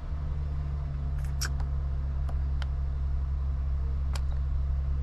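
A few short clicks of buttons being pressed on a lorry's digital tachograph during a manual entry, over a steady low hum.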